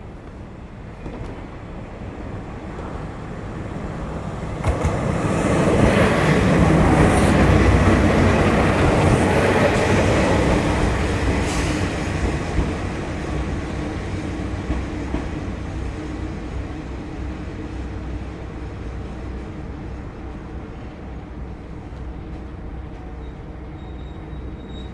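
Kanto Railway Joso Line diesel railcar going by on the track: the engine and wheel noise swells to a peak about six seconds in, with a few sharp clicks from the wheels, then fades slowly into a low engine hum.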